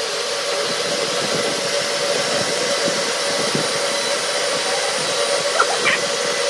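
A steady blower or fan running: an even whooshing noise with one constant hum.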